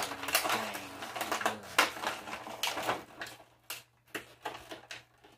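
Clear plastic blister packaging crackling and crinkling as an action figure is worked out of its tray. It is dense for about three seconds, then thins to a few scattered clicks.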